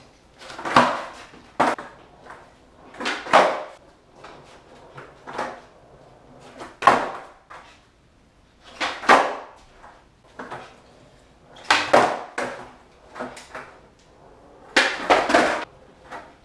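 Skateboards popping, landing and slapping down on a concrete floor as flat-ground tricks are tried: a series of sharp wooden clacks and slaps every second or two, ringing briefly in a small room, with a quick double clack near the end.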